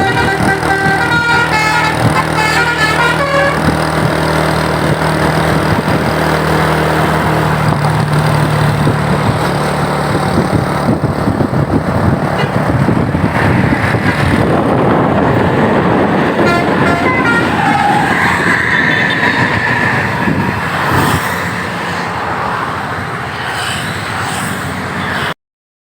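Telolet basuri multi-tone bus horn playing a run of changing musical notes for the first few seconds, over the bus's running engine. Engine and road noise follow, with a brief horn tone again about two-thirds of the way through, before the sound cuts off suddenly near the end.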